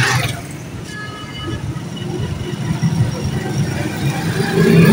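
A steady low engine rumble that rises a little in pitch near the end, with faint voices in the background.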